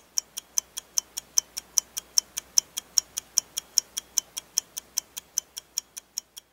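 Clock-style ticking: about five crisp, even ticks a second, growing fainter near the end.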